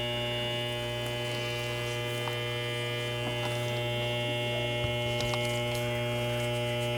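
Steady electrical hum with a row of higher overtones and a faint, steady high whine from a running R-410A heat pump system, with a few faint ticks.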